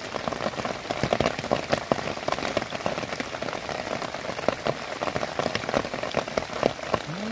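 Rain falling on open lake water: a steady hiss of rain with many separate sharp raindrop hits throughout.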